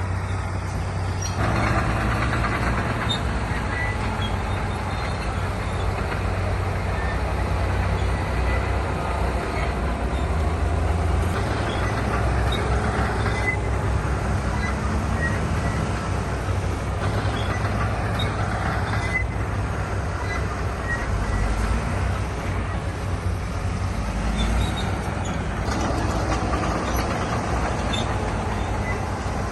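Diesel engines of heavy earth-moving machinery running steadily under load. The sound grows louder about a second and a half in and stays at that level.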